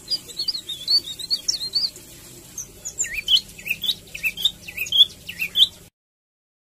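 Caged songbird chirping: a fast run of high warbled notes, then after a short pause a series of sharp calls that dip and rise in pitch. The sound cuts off suddenly near the end.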